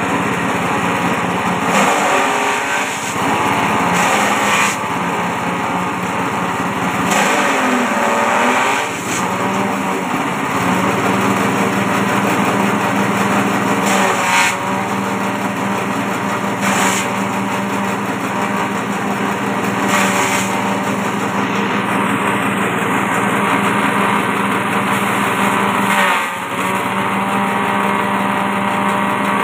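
Small petrol engine running a forage chopper at high throttle, with a rush of shredding noise every few seconds as bunches of long grass leaves are fed into the cutter. The engine note dips briefly a few times under the load.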